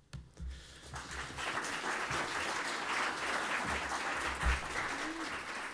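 Audience applause: scattered claps at first, swelling within about a second into steady clapping.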